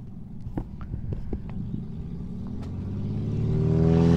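Piston engine of a propeller tow plane growing louder as the aircraft flies in low over the airfield, its steady drone becoming the loudest sound by the end. A few faint clicks are heard in the first second and a half.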